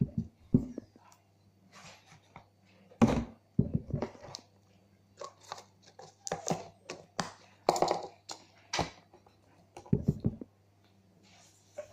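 Hands working slime: an irregular run of short squelching pops and clicks, over a steady low hum.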